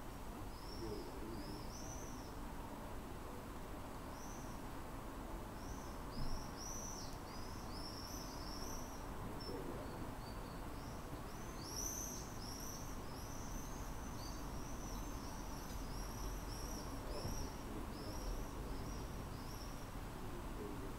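A small bird chirping over and over, in quick high arched chirps that come thickest in the second half. One brief thump about six seconds in.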